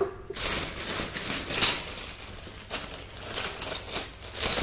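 Handling noises of tools being picked up and looked over: a handful of separate scrapes and rustles, the loudest about a second and a half in, recorded binaurally.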